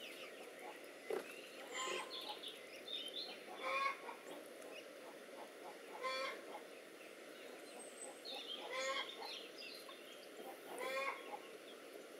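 Poultry calling: a short pitched call repeated about every two to three seconds, with quick high chirps between the calls.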